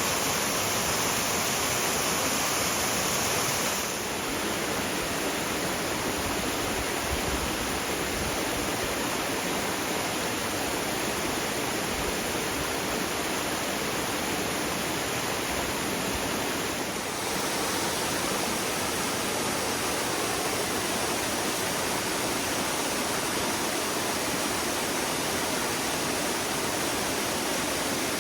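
Waterfall rushing: a loud, steady roar of falling water, its level and tone shifting slightly about 4 and 17 seconds in.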